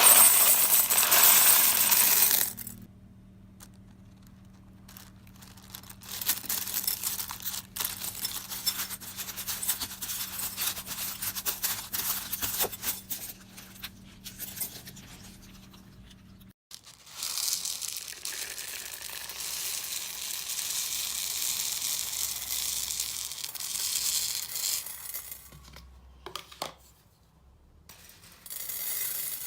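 Slime being squeezed and poked by hand: stretches of crackling, clicking pops and rustling, loud at the start, then in several bouts with a short pause near the end. A faint steady hum underlies the first half.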